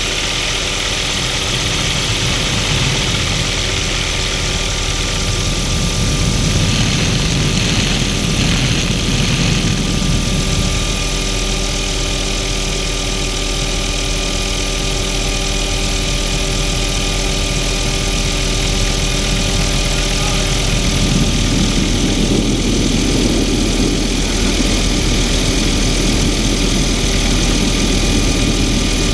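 Helicopter engine and rotor running steadily in flight, heard from inside the open, doors-off cabin with wind rushing past the microphone. The wind rumble swells louder about six seconds in and again from about twenty-one seconds on.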